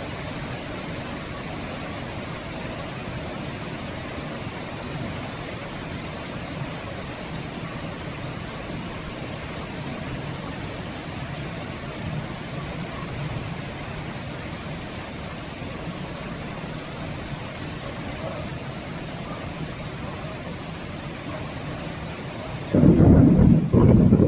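Steady rain with a low rumble underneath, then a sudden loud thunderclap near the end.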